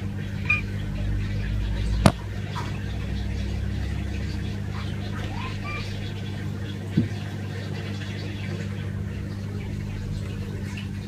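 Steady low electrical hum of aquarium equipment, with a sharp click about two seconds in and a fainter one about seven seconds in.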